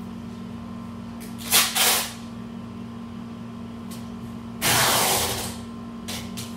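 Packing tape ripping off the roll as it is pulled across a cardboard box: two short rips about one and a half seconds in, then a longer one about four and a half seconds in that fades out, over a steady low hum.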